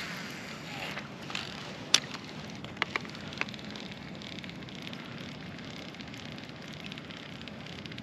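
A few sharp clicks from fishing tackle being handled in a kayak, one loud click about two seconds in and three lighter ones about a second later, over a steady low background of water and wind.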